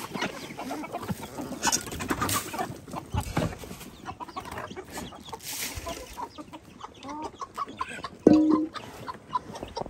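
A flock of backyard chickens clucking as they feed on scattered grain, with many short clicks and rustles and one loud call a little past eight seconds in.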